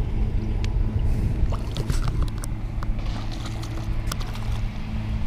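A steady low hum, with scattered light clicks and splashes from a hooked freshwater drum thrashing at the surface.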